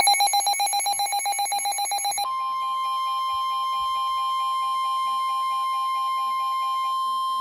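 Emergency alert tones for a flash flood warning. A fast electronic pulsing beep lasts about two seconds, then a steady, piercing weather-radio warning alarm tone sounds, with a fainter repeating beep under it until near the end.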